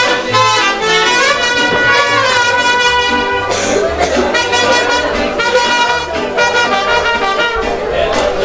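Brass band music led by trumpets, with a low bass part moving in steady steps underneath and quick running phrases in the first few seconds.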